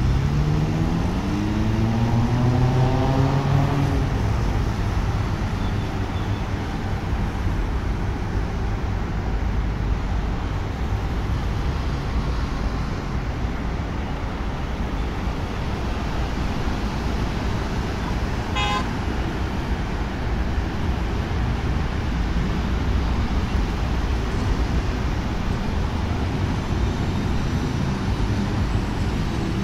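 Steady city road traffic below, a continuous hum of passing vehicles. In the first few seconds one vehicle's engine rises in pitch as it accelerates, and a short high horn toot sounds about two-thirds of the way through.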